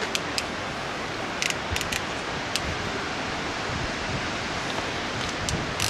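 Steady outdoor hiss with a scattering of small, sharp metallic clicks as a coax connector is fitted and positioned in the jaws of a ratcheting coax crimp tool.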